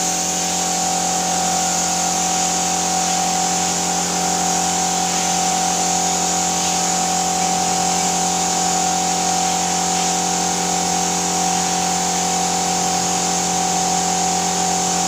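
Paint spray gun and its air supply running steadily: a constant motor hum with a hiss of spraying air over it.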